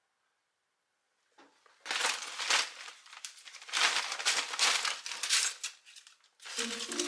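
Crinkling, rustling handling noise in two bouts, the first about a second long and the second about two seconds, with music coming in near the end.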